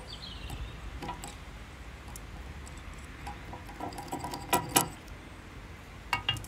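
Small metallic clicks and clinks from hands working a large barrel-type trolling reel and its line. The loudest is a pair of sharp clicks about four and a half seconds in, with a few more near the end.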